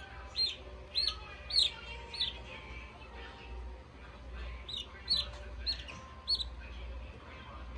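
Newly hatched chick peeping: short, high peeps that drop in pitch, about two a second. There are four in the first two seconds, then a pause, then four more.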